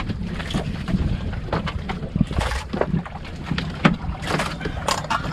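Steady low wind rumble on the microphone aboard a small boat at sea, with scattered sharp clicks and knocks from plates, a pot and a cup being handled and people shifting on the wooden deck.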